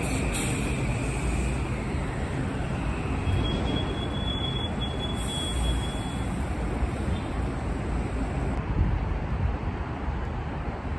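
Kawasaki M8 electric multiple-unit train pulling away, a steady rumble of wheels on rail, with a brief high whine about three seconds in. Near the end, after a cut, another train approaches.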